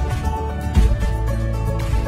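Background music with a steady beat and a strong bass line.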